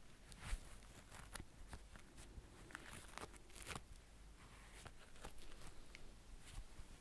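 Faint, irregular soft scratches and rustles as gloved fingers stroke and rub a plush teddy bear held close to the microphone.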